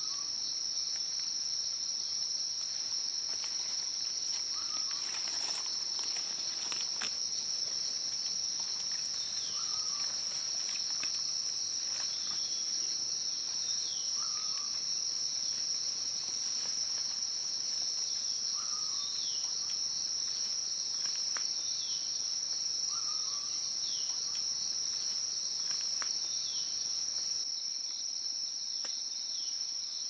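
Steady high-pitched drone of an insect chorus in dense bamboo forest. Over it a bird calls in short falling chirps every few seconds.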